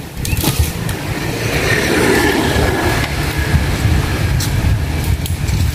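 Two-stroke chainsaw idling with a steady low rumble.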